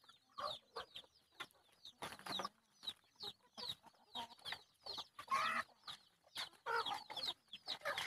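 A flock of black-meat chickens clucking and chirping as they feed, in many short calls one after another, some of them high chirps that slide downward.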